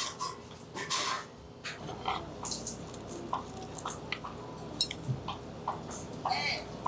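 Light, scattered clicks and crackles of eating at a table: a grilled shrimp's shell being peeled apart by hand, with utensils tapping on plates.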